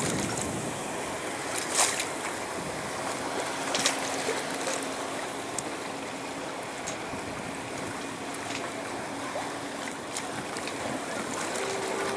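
Wind and choppy seawater rushing and splashing around a small sailboat under way, with two sharp knocks about two and four seconds in.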